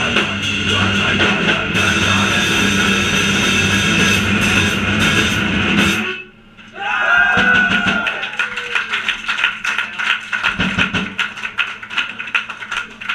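Hardcore punk band playing live with distorted electric guitar and drum kit, the song stopping abruptly about halfway through. After it come a brief ringing guitar tone that bends in pitch and a run of scattered claps.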